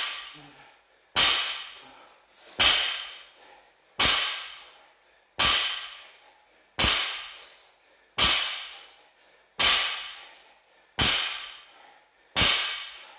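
A 60 kg barbell touching down on the floor mat on each deadlift rep: a sharp clank of plates and bar about every second and a half, nine times, each ringing out for about a second.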